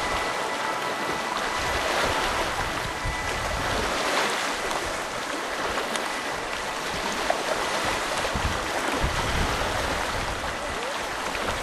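Sea waves washing against a rocky shoreline, a steady rushing noise, with gusts of wind buffeting the microphone now and then.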